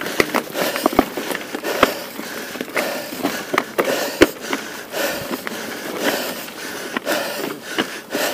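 Mountain bike riding over a dry, stony dirt trail: tyres rolling over loose gravel and rock, with many sharp, irregular knocks and rattles from the bike jolting over bumps.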